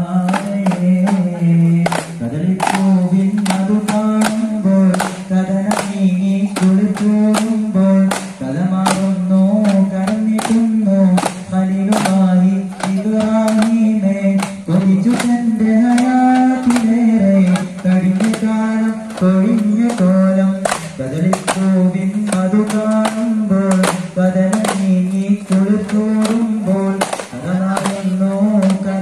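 A singing voice carrying a wavering, chant-like melody over steady beats of hand-held frame drums, struck about twice a second.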